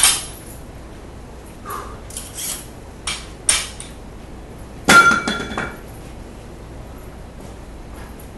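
Weight plates being loaded onto a barbell: a few short knocks and clinks, then the loudest, a metal clank with a brief ringing tone about five seconds in.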